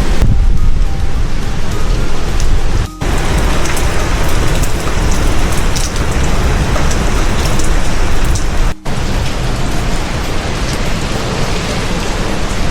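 Hurricane storm: heavy rain and strong wind, the gusts rumbling on the microphone. The sound cuts out for a split second twice, about three and nine seconds in.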